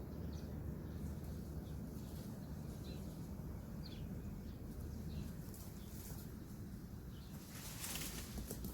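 Eating crisp bilimbi fruit: faint scattered mouth clicks over a steady low rumble, then a burst of crisp crunching near the end.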